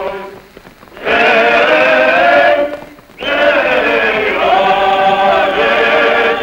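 A choir singing two long, held phrases, with a short break about three seconds in.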